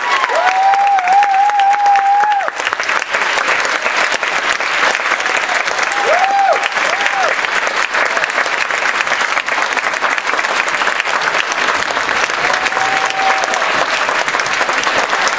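Audience applauding steadily, with whistles rising and falling a few times: near the start, midway and near the end.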